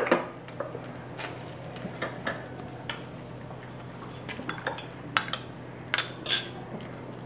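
Stainless steel cookware and utensils clinking at a gas stove: a sharp knock at the very start, then scattered short metal clinks, a few close together near the end, over a faint steady low hum.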